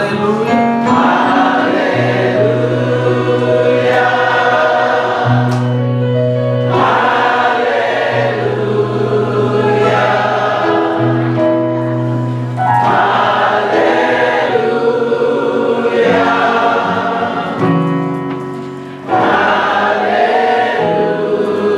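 Gospel choir singing with instrumental accompaniment: sung phrases over held bass notes, with a brief drop in level shortly before the end.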